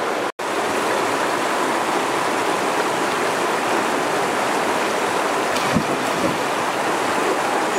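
Steady rush of a flowing stream, cutting out for an instant shortly after the start.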